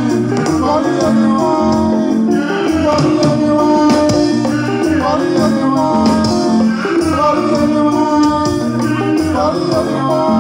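Live band music through loudspeakers: electric guitars, bass and drums playing a steady groove, with a singing voice coming in at times.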